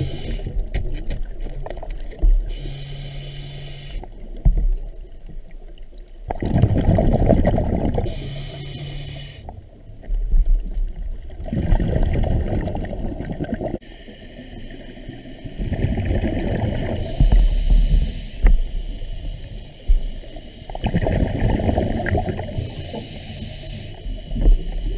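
A scuba diver breathing through a regulator underwater: a short hiss on each inhale and a longer bubbling rush on each exhale, repeating about every four to five seconds.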